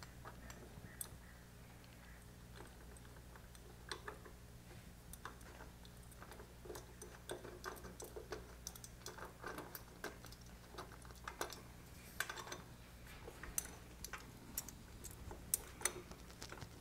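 Faint, irregular small clicks and taps of a metal carburettor and spacer being handled and fitted against a motorcycle cylinder head while being lined up under its mounting screws, over a steady low hum.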